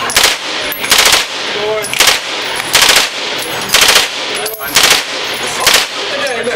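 A firearm shot seven times in a steady string, about one shot a second, each a sharp loud crack with echo hanging between shots.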